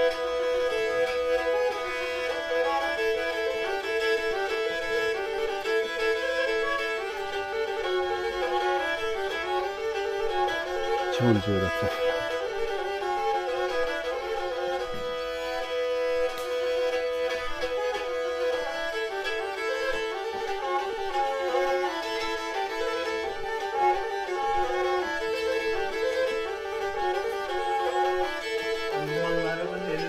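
Background music: a Black Sea kemençe, a small bowed fiddle, playing a tune with quickly changing notes. A brief low falling sound cuts in about eleven seconds in.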